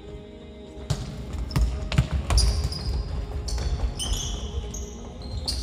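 Futsal play on a wooden gym floor: the ball thudding off feet and floor, running footsteps, and sneakers squeaking on the boards, all starting about a second in.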